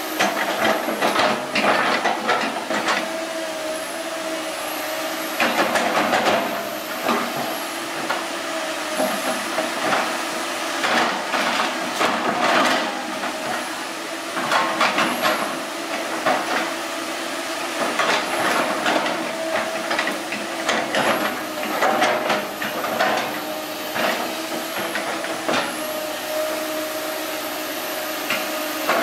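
Komatsu PC160LC excavator backfilling over a pipe: its engine and hydraulics run with a steady whine, broken every second or two by bursts of clanking and scraping as the steel bucket drags soil.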